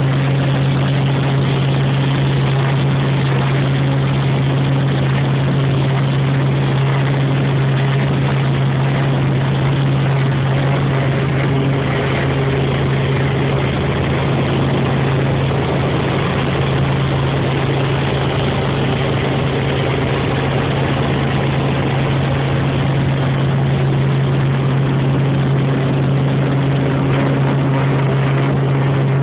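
Helicopter in flight: engine and rotor noise making a steady, loud drone with a strong low hum.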